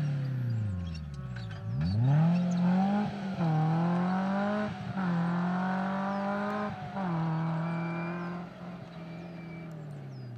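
Suzuki Jimny rally car's engine revving hard under full acceleration: the revs fall steeply about a second and a half in, then climb sharply back and hold high with brief dips every couple of seconds. The engine grows fainter near the end as the car draws away.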